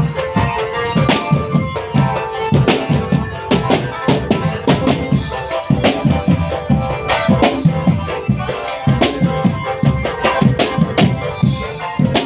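A marching drum band's snare and bass drums playing a steady marching beat, with a tune running over the drumming.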